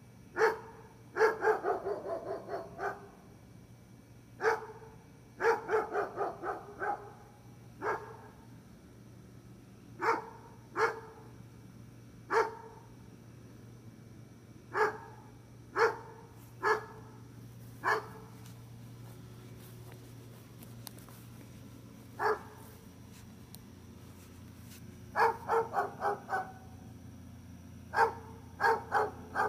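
Dog barking: mostly single barks a second or more apart, with three quick runs of five or six barks in a row and a pause of a few seconds in the middle.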